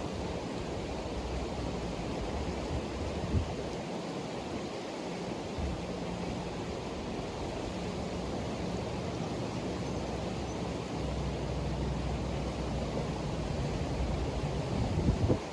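Steady rush of river water, with a brief knock about three seconds in and a few bumps near the end.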